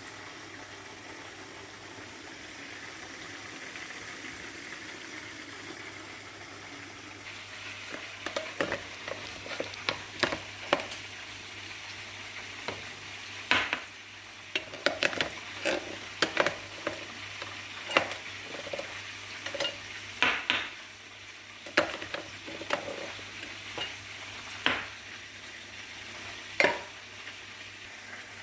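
Kitchen utensils being handled: irregular clinks, knocks and scrapes, as of a spoon against a pot or container, over a steady hiss that runs alone for the first several seconds.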